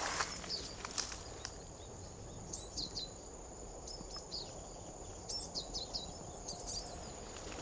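Small birds chirping in short, high, falling notes, a few at a time, over steady outdoor background noise and a faint, steady high-pitched whine.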